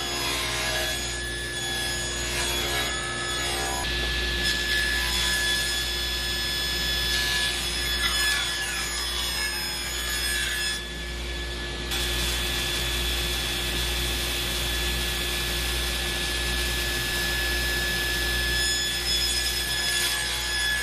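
Table saw running and ripping a glued-up wooden panel, a steady machine whine under the noise of the blade cutting through the wood.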